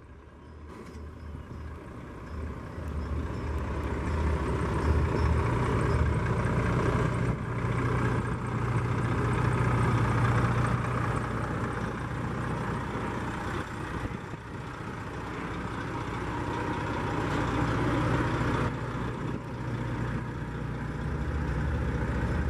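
Volvo FH truck's diesel engine running at low speed as the truck creeps past close by, growing louder over the first several seconds, easing off briefly just past the middle, then building again.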